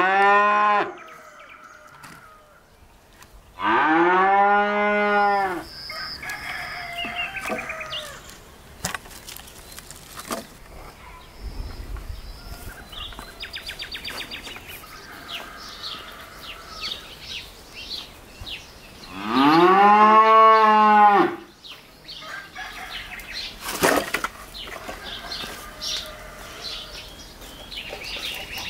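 A cow mooing twice, each moo about two seconds long and rising then falling in pitch, with the tail end of another moo at the very start. Fainter short clicks and chirps fill the gaps.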